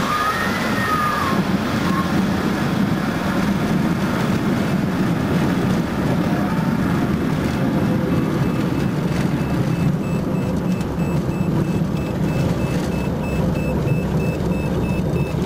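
Light single-engine airplane's piston engine and propeller running steadily at low power, heard from inside the cabin as the plane rolls along a dirt airstrip after landing. A faint repeated high beep joins about ten seconds in.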